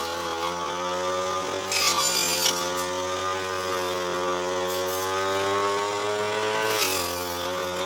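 Petrol brush cutter running at high speed while cutting tall, thick grass, its engine pitch wavering slightly as the load changes. There are brief hissing bursts about two seconds in and again near the end.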